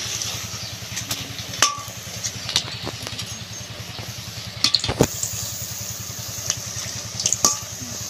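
Chicken chops deep-frying in hot oil in a wok: steady sizzling, with a metal spatula and skimmer clicking and scraping against the pan a few times. A steady low engine-like drone runs underneath.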